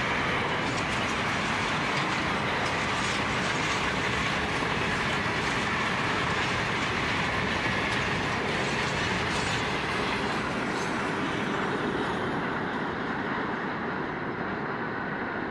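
Container wagons of a long freight train rolling past on steel rails: a steady rumble of wheels on rail with scattered clicks. The sound dies down a little near the end as the last wagons pass.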